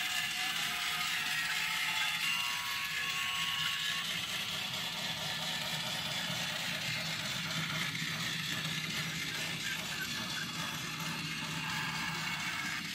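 Small motorized mechanism of an animated Christmas village running steadily, a continuous whirring gear-and-ratchet clatter.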